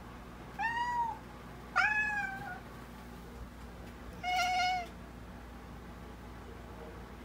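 A domestic cat meows three times, short calls of about half a second each, spaced over a few seconds. The second meow is the loudest.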